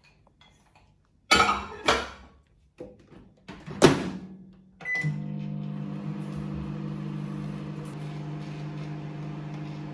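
Microwave oven: a few knocks and clicks, the loudest about four seconds in as the door is shut, then a short beep and the oven starts, humming steadily.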